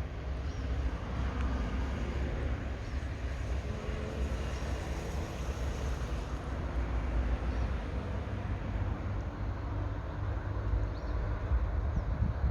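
Steady outdoor background noise with a strong low rumble, with a few faint, short high chirps now and then.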